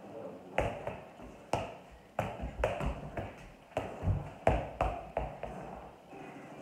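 Soccer ball being juggled: a run of about a dozen dull taps of the ball off the feet, irregularly spaced, stopping near the end.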